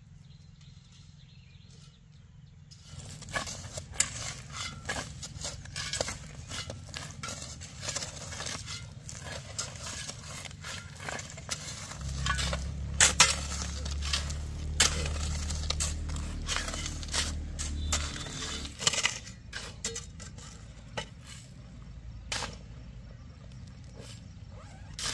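Irregular clattering, knocking and scraping of handled objects, starting about three seconds in and thinning out in the last few seconds, with a low hum underneath for several seconds in the middle.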